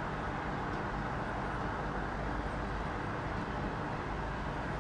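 Class 158 diesel multiple unit running as it approaches, a steady low engine rumble with a faint hum.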